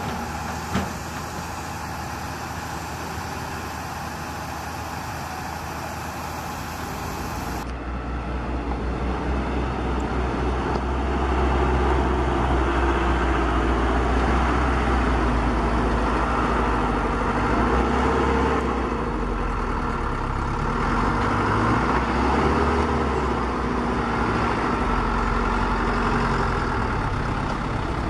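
Miniature RC construction models running: a continuous truck-like engine rumble with a click just under a second in, then, after a cut about eight seconds in, a deeper and louder steady rumble as the RC dump trucks drive.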